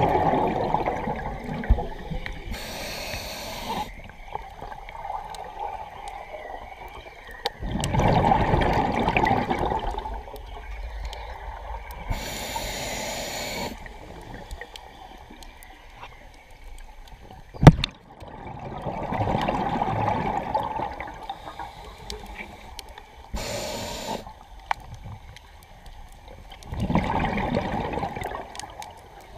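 Scuba regulator breathing underwater: a hiss on each inhale alternating with a longer gurgling rush of exhaled bubbles, a few slow breaths in all. A single sharp knock about two-thirds of the way through.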